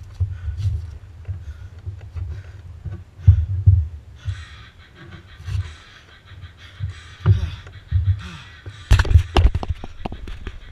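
A cyclist breathing hard as he recovers from a roller interval, his breath puffing on the nearby microphone as irregular low thumps and hiss. About nine seconds in comes a quick cluster of knocks and rattles as hands grab the handlebar-mounted camera.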